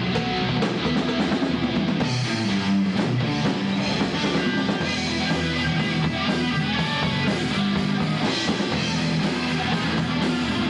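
Rock band playing live: loud electric guitars over a drum kit, one continuous stretch of the song.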